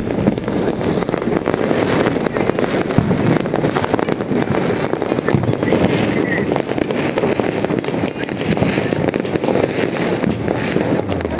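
Many aerial fireworks going off at once across a city, heard as a dense, continuous crackle of sharp bangs with no pause.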